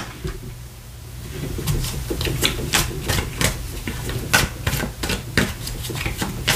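Tarot cards being handled and laid out on a cloth-covered table: a run of sharp, irregular clicks and taps, several a second, starting about two seconds in, over a low steady hum.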